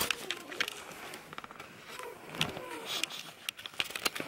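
Close handling noise: rustling, scraping and sharp irregular clicks of the camera rubbing against a dog's fur and a fleece blanket while a newborn puppy is handled.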